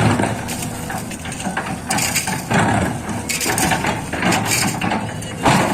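LiuGong 920D excavator working: irregular clanking and crunching, as of the bucket and attachments striking and scraping material, over a steady low engine rumble. The clanks come every second or so, with a loud one near the end.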